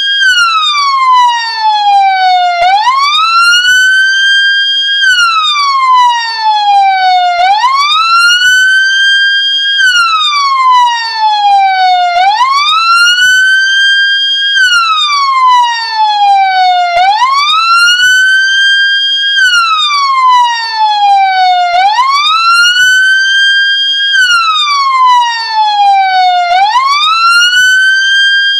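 Ambulance siren sounding a slow wail: the pitch rises quickly, holds briefly at the top, then falls slowly, repeating about every five seconds.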